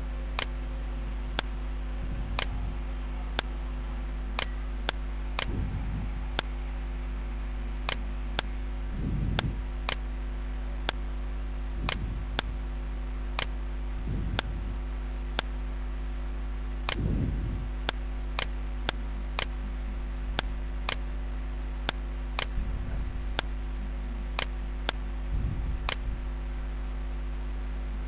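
Regular sharp ticks, about one every three-quarters of a second, over a steady electrical mains hum, with a few soft low rumbles now and then.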